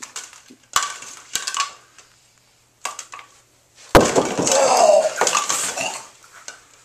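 A few sharp knocks early on, then about four seconds in a loud crash as a rolled 16 lb bowling ball hits plastic toy bowling pins and a box, followed by about two seconds of clattering as the pins scatter and the box topples over.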